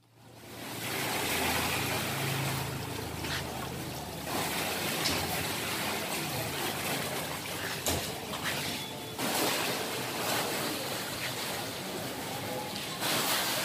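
Dry gravel chips poured from a sack down the borewell around the PVC casing pipe, a steady rushing hiss that swells and eases as the pour changes, with a low machine hum under it for the first few seconds.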